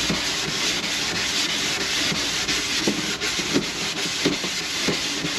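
A motorcycle saddlebag being sanded by hand: steady back-and-forth scuffing strokes that key the surface for paint.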